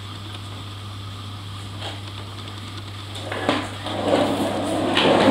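Plastic wheels of a child's ride-on toy rolling over a wooden floor: a rumble with a few knocks that starts about three and a half seconds in and grows louder as the toy comes closer, over a low steady hum.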